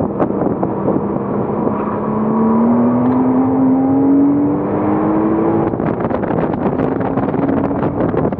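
2007 Porsche Cayman S's flat-six engine under acceleration. Its pitch climbs steadily for about four seconds, drops a little near the six-second mark, as at an upshift, then climbs again, with wind buffeting on the microphone.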